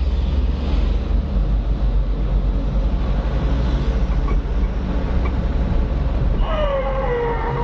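Steady low rumble of a truck engine running. Near the end a single pitched tone slides downward for about a second.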